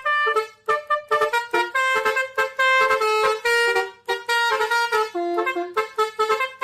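Telolet bus horn: a multi-tone horn playing a quick tune of short, stepping notes, with brief gaps between phrases.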